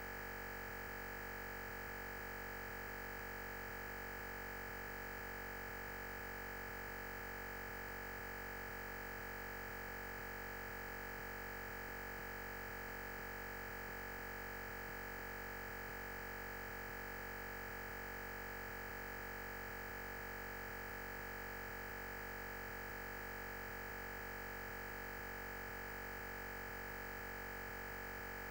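Steady electronic hiss with a constant high tone, unchanging throughout, and no speech: the lecture's audio feed has dropped out, leaving only line noise.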